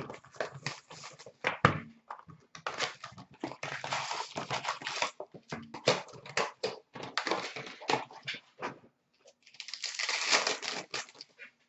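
Plastic-wrapped hockey card packs being handled and opened: an irregular run of crinkling and crackling, with longer, denser stretches about four seconds in and again near ten seconds.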